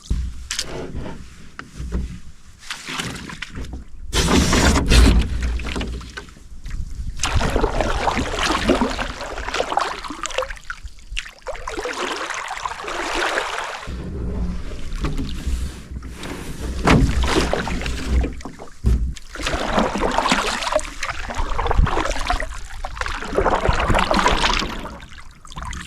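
Canoe being paddled across a small shallow pond: paddle strokes and water sloshing at the hull, in irregular swells of splashing noise.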